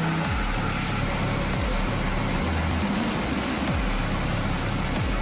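Steady mechanical noise of heavy sawmill machinery running, with a low, changing bass line of background music beneath it.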